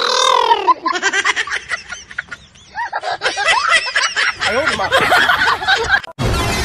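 High-pitched giggling and laughter, the voices rising and falling in pitch. It cuts off sharply about six seconds in as music begins.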